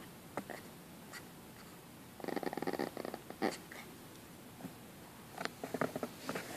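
Small dogs making short growling, grunting noises in rapid pulses: one dense burst about two seconds in and a looser cluster near the end.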